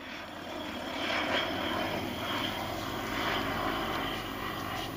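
Pipistrel Virus ultralight aeroplane flying overhead, its engine and propeller droning steadily. The sound builds slightly in the first second, then holds.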